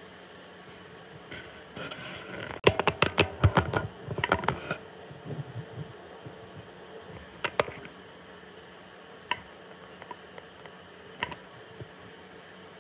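Handling noise: a quick run of sharp clicks and knocks from about two to five seconds in, then a few single clicks spaced out, as hands work on equipment close to the microphone.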